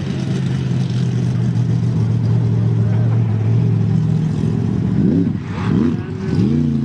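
Side-by-side UTV engine running at a steady pitch under load, then revved in three quick throttle blips, each rising and falling, near the end.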